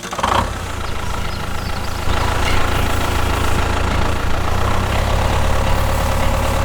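A small tractor engine running steadily at idle, a low, even drone.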